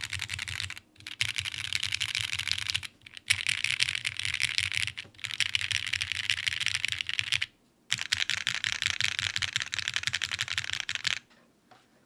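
Fast typing on a TGR x Singa HK Unikorn 60% mechanical keyboard with lubed Cherry Ultraglide Black linear switches, an aluminum half plate in an O-ring tray mount, and GMK keycaps. Dense, rapid keystrokes come in five runs with short pauses between them and stop near the end.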